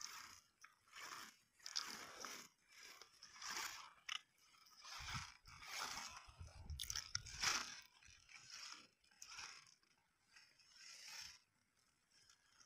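Cow grazing, tearing and cropping mouthfuls of grass in a run of short rips and crunches, about one a second.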